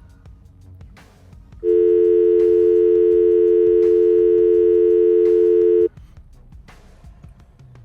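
Telephone dial tone: two steady tones held together for about four seconds, starting and cutting off abruptly.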